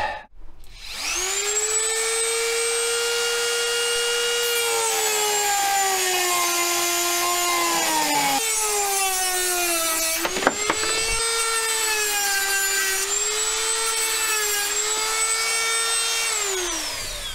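Dremel rotary tool with a cut-off wheel whining at high speed as it cuts into a through-hull ventilation fitting, its pitch sagging whenever the wheel bites. It stops about eight seconds in, starts again, and spins down with a falling whine near the end.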